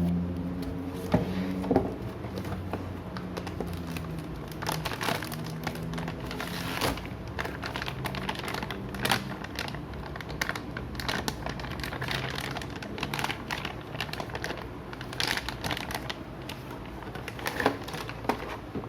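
Plastic packaging crinkling while a toner cartridge is handled, with irregular sharp clicks and taps of hard plastic throughout. A faint steady musical tone fades out in the first few seconds.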